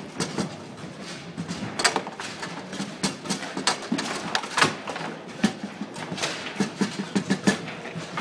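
Bonzini table football game in play: the ball and the wooden players clacking in quick, irregular knocks and clicks as the rods are worked, the loudest strike a little past the middle.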